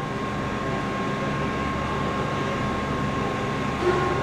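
Steady machinery hum with a thin, constant high whine, level throughout.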